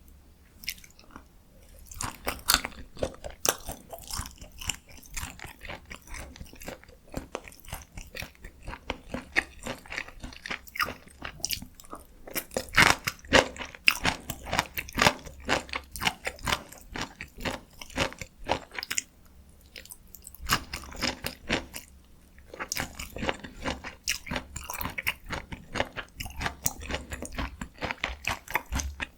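Close-miked chewing of spicy stir-fried chicken (dakgalbi): wet, irregular smacks and crunches of the bites being chewed, quieter for a moment about two-thirds of the way through.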